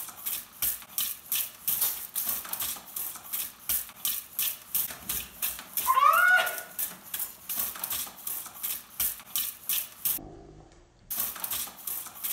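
Pump-action Super Soaker water gun pumped rapidly, about four strokes a second, each stroke squirting a stream into a fireplace. There is a brief rising squeal about six seconds in, and the pumping pauses for about a second near the end.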